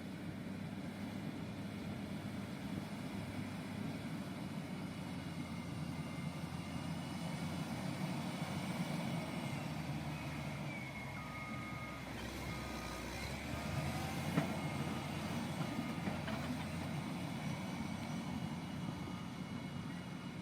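Heavy earthmoving machine's engine running steadily. A little past halfway its reversing alarm starts beeping about once a second, and a single sharp knock comes soon after.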